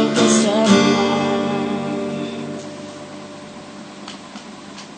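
Acoustic guitar's last strummed chord of the song ringing out and slowly dying away, with a couple of faint string touches near the end.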